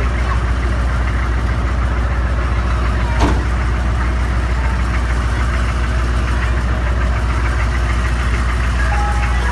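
Ice cream truck's engine idling steadily at close range, with one sharp click about three seconds in.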